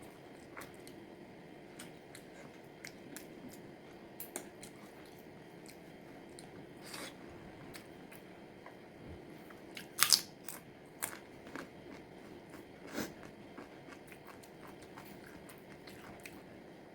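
Close-miked eating of pepper chicken: chewing with scattered crisp bites and crunches. The loudest bites come about ten seconds in and again about three seconds later.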